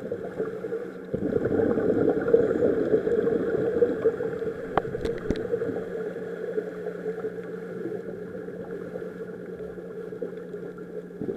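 Underwater sound of a scuba diver breathing through a regulator: a stretch of exhaled bubbles gurgling for a few seconds, then a quieter stretch with a steady low hum and a few sharp clicks, and the bubbles starting again at the very end.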